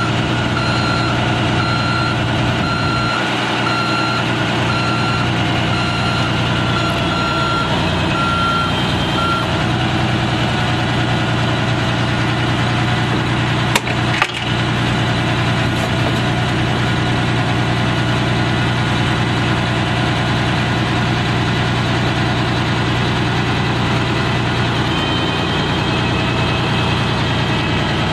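Detroit Diesel six-cylinder turbo diesel engine of a fire truck running steadily. For the first nine seconds or so an electronic warning alarm beeps at an even rate. There is a single short clunk about 14 seconds in.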